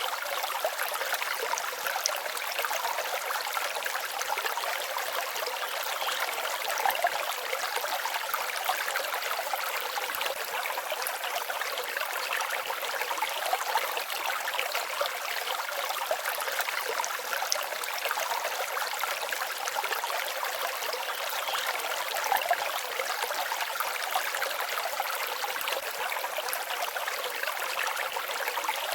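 Forest stream babbling steadily over stones: a light, even splashing with no deep rumble.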